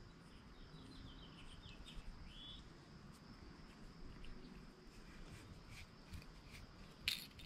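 Faint outdoor background: a steady high insect trill, a short run of bird chirps about two seconds in, and light clicks, with one sharper click near the end.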